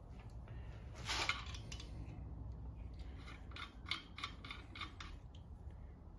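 Metal clicks and clinks from a hand valve spring compressor worked over the valve springs of a 6.1 Hemi cylinder head: a short scrape about a second in, then a quick run of light clicks, about three or four a second.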